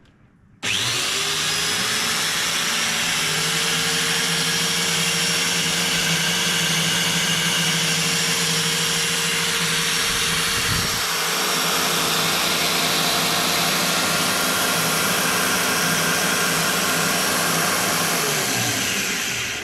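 Homemade 1x30 belt grinder, driven by an angle grinder, switched on and running at speed: a steady high motor whine with belt hiss. Near the end it is switched off and spins down to a stop.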